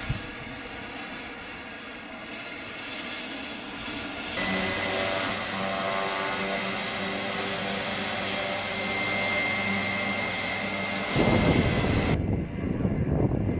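Pilatus PC-6 Porter's PT6A turboprop engine spooling up and running on the ground. A high turbine whine rises gently at first, then settles into a steady whine over a low propeller drone. Near the end a louder, deep rumble takes over.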